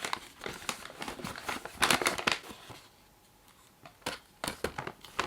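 Packaging crinkling and rustling as it is handled and opened, a dense run of short crackles for about two and a half seconds, then a few quieter rustles and clicks near the end.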